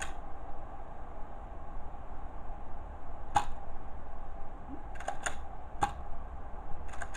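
Nerf blaster firing foam darts: sharp single clicks, one at the start, one a few seconds in, three in quick succession around five to six seconds in, and another near the end. No balloon bursts among them.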